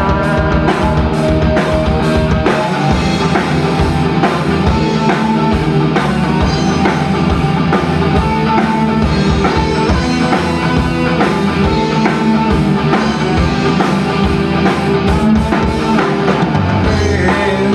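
Live rock band playing an instrumental break: electric guitars, bass and a drum kit keeping a steady beat, loud and continuous.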